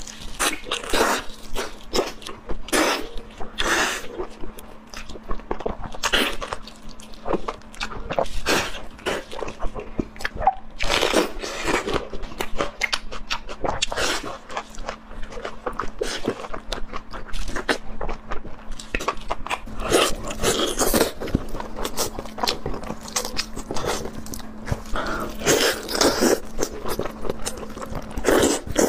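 A person chewing and crunching food in irregular bites, with crisp crackly crunches coming every second or so.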